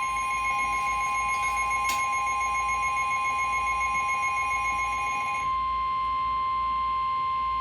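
NOAA Weather Radio warning alarm tone: a loud, steady single tone near 1 kHz, sounded to signal that a warning message follows. For the first five and a half seconds a second, pulsing alarm tone sounds over it, then stops.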